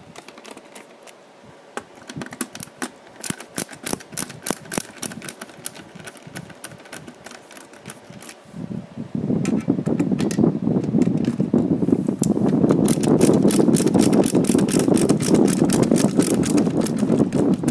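A screwdriver working screws out of a plastic motor-gearbox housing. Irregular clicks come first; from about halfway there is a fast, even clicking over a louder rough grinding and rubbing noise.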